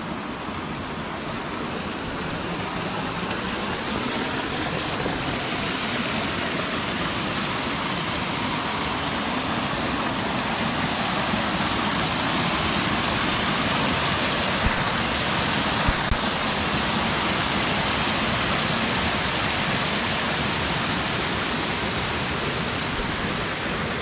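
Water rushing over rock ledges in a small waterfall and cascades, a steady rush that grows a little louder over the first several seconds and then holds.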